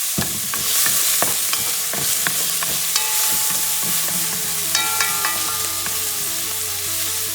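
Chopped onions, sweet peppers and garlic sizzling in oil in a cast iron pot as they are stirred, with a steady frying hiss and frequent short clicks and scrapes of the utensil against the pot.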